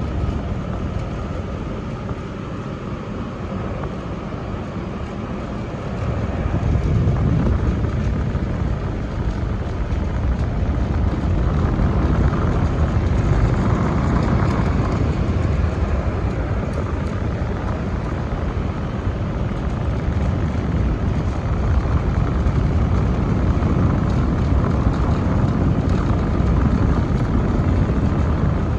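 Old General air conditioner running with a steady whir and low hum, growing louder about six seconds in.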